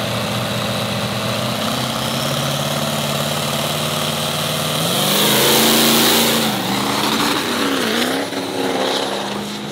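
Two diesel drag-racing pickups holding revs on the starting line with a steady engine note. About five seconds in they launch with a loud surge, then the engine pitch dips and climbs again as they pull away down the strip.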